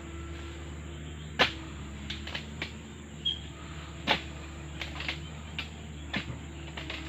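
Sharp knocks and chops of a long-pole harvesting blade striking the frond stalks at the crown of an oil palm, about ten strokes at uneven spacing. The loudest come about one and a half seconds in and about four seconds in. Insects chirr steadily underneath.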